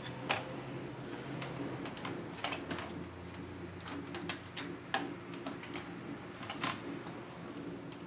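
Irregular small clicks and taps of plastic and metal as a laptop motherboard is handled and worked loose from its plastic base, about a dozen over several seconds, with a steady low hum beneath.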